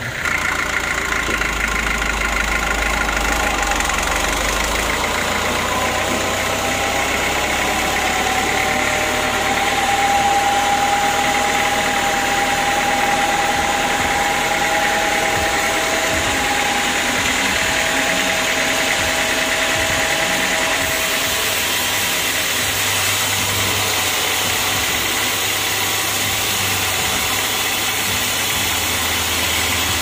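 Homemade band sawmill running steadily with a constant mechanical drone while sawing an acacia log. A higher whining tone comes in about eight seconds in and fades out around twenty seconds.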